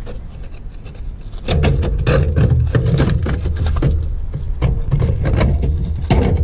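Rusted spare-wheel carrier bolt and bracket on a caravan chassis being worked loose by hand, giving irregular metallic clicks, knocks and scraping over a steady low rumble that grows louder about a second and a half in.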